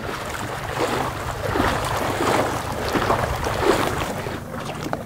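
Outboard motor on an inflatable boat running steadily at speed, a low drone under the rush and splash of water against the hull, with wind on the microphone.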